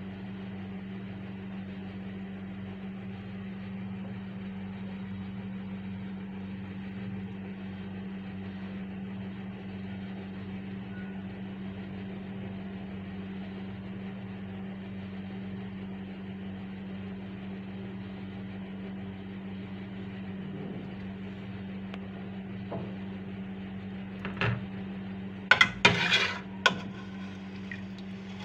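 Steel spoon clinking several times against a steel cooking pot of beetroot as pieces are scooped up, about three-quarters of the way through. Under it, a steady low hum with an even hiss.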